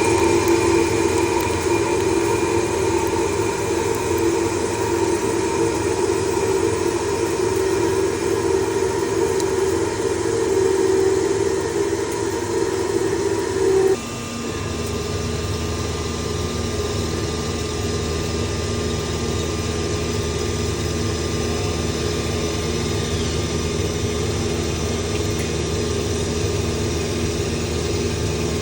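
CNC lathe with a power turret and tailstock running steadily. About halfway through, its higher running note stops abruptly and it carries on at a lower, slightly quieter pitch.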